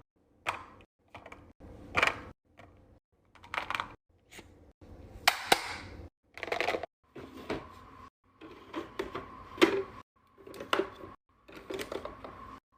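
Items being handled and set into a mini fridge during a restock: a string of short knocks, clicks and clatters about once a second, with sudden silent gaps between some of them. A faint steady tone comes in about halfway through.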